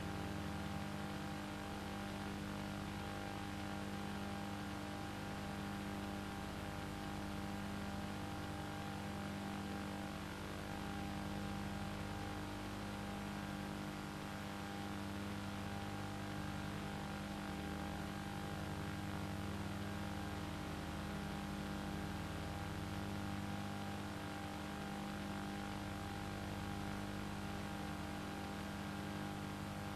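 Steady mechanical hum with several fixed tones and a fine rapid flutter, unchanging throughout.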